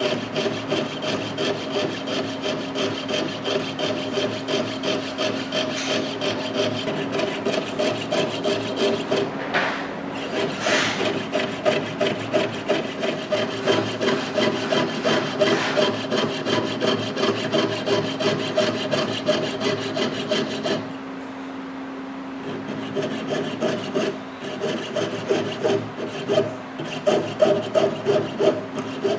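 Hand filing or sawing on metal, a steady back-and-forth rasping of about two strokes a second, pausing for a couple of seconds near the end before starting again.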